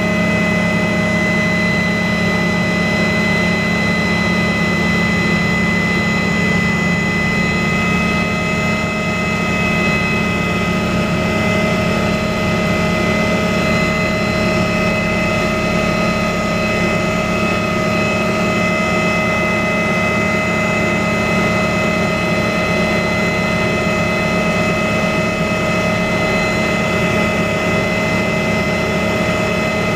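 Motors and propellers of a small aircraft heard from on board in flight, running steadily with a constant high whine over a low hum.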